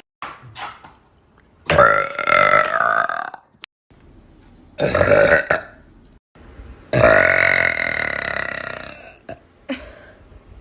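Female burping: three loud belches a second or so apart, the last one drawn out for about two seconds and fading, with a couple of shorter, fainter ones near the start and near the end.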